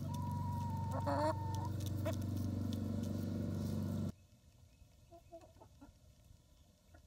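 Chickens clucking and calling while pecking grain from a hand, with one drawn-out call about a second in. A steady low hum runs under the first four seconds, then drops away, leaving quieter, scattered clucks.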